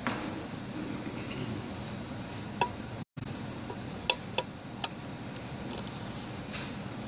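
Steady low room hum with a few light, ringing clinks of tableware: one about two and a half seconds in, then three in quick succession around four to five seconds in. All sound cuts out for an instant about three seconds in.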